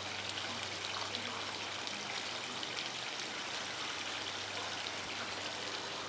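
Water trickling and splashing steadily down a backyard pond's rock waterfall.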